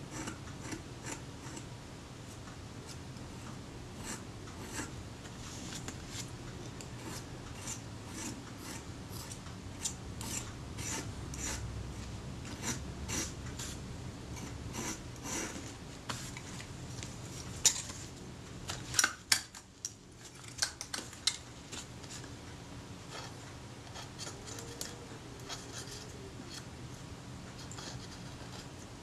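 Scalpel blade scraping old, crumbly leatherette adhesive off the metal body of a Kodak Retina IIIS camera in many short, repeated strokes. A few sharper, louder scrapes come about two-thirds of the way through.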